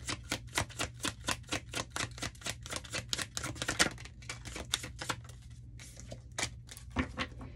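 Tarot deck being shuffled by hand: a quick run of crisp card clicks, about eight to nine a second, thinning to a few scattered clicks after about four seconds.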